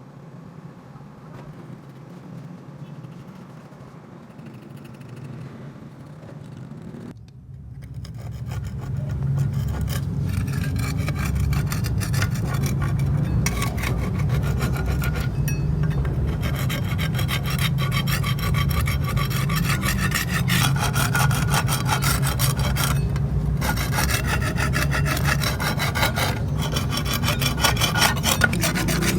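Abrasive scraping and rubbing on the metal of a rusty bench vise: fainter at first, then much louder and continuous from about eight seconds in.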